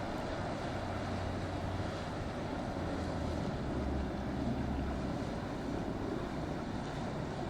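Boat motors running with a low, steady hum that shifts lower a few seconds in, over a continuous wash of wind on the microphone and surf.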